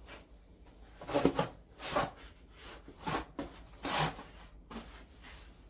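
A handful of short, irregular knocks and scrapes of tools and parts being handled at a workbench.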